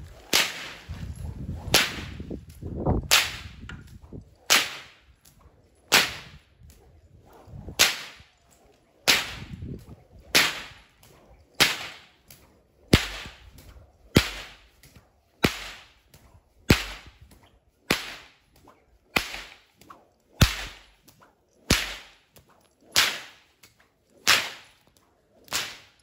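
A training whip with a lash, swung repeatedly through the air, snapping about once every second and a third, some twenty cracks in a row.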